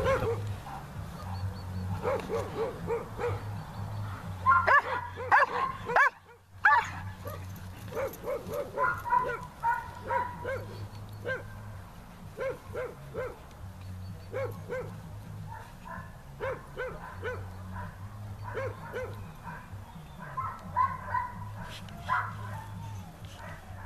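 A dog barking and yipping over and over in quick runs of short, high barks, with the sound cutting out for a moment about six seconds in.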